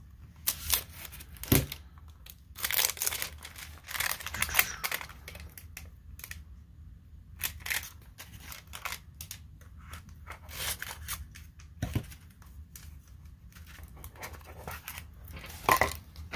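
Plastic packaging wrap being torn open and crinkled, with a cardboard box being handled, in irregular bursts with pauses. A couple of sharp knocks fall about a second and a half in and near twelve seconds in.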